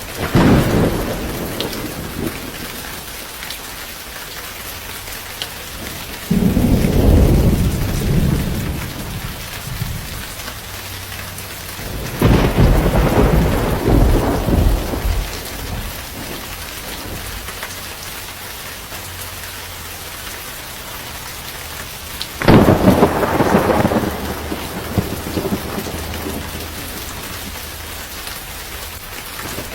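Steady rain falling, with rolls of thunder: four loud rumbles, at the start and about six, twelve and twenty-two seconds in, each starting suddenly and dying away over a few seconds.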